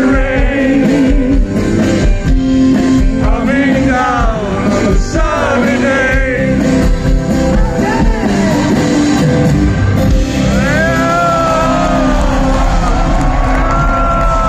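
Live rock band playing loudly through a concert PA, with acoustic guitar and sung vocal lines.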